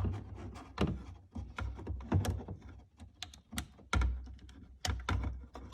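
Irregular plastic clicks and knocks as wiring connectors are worked loose and unclipped from the back of a BMW E46 taillight.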